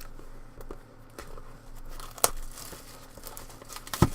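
Trading-card packaging crinkling and tearing as it is opened by hand, with two sharp snaps, one a little past halfway and a louder one near the end.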